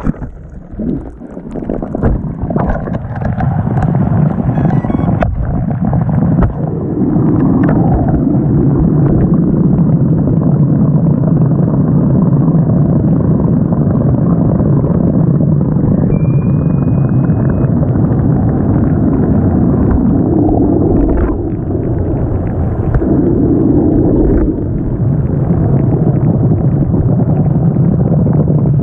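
Muffled low rumble with gurgling, recorded by a crashed FPV racing drone's onboard camera lying underwater in a lake.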